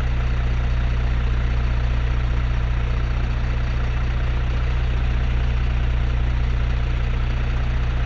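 A large engine idling steadily, a low, even drone.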